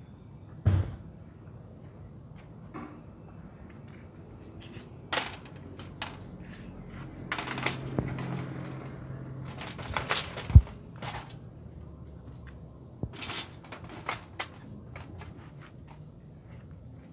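Plastic slatted floor panels being laid into an aluminium dog cage: scattered knocks, clatter and light clicks of plastic against metal bars, with one heavy thump about ten seconds in.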